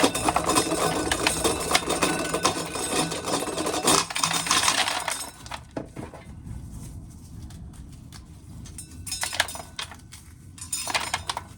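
Corn sheller at work: a dense rattling clatter of ears and kernels that stops about five seconds in, followed by two short rattles near the end.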